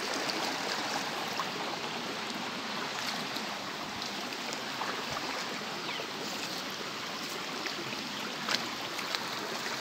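Shallow rocky forest stream flowing steadily over stones, with a couple of faint knocks near the end.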